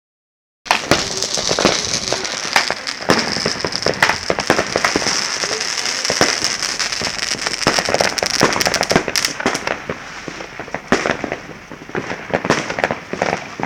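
Many fireworks and firecrackers going off at once: a dense, continuous run of sharp bangs and crackling over a steady hiss. It starts abruptly just under a second in, and the hiss dies away about two-thirds of the way through while the bangs go on.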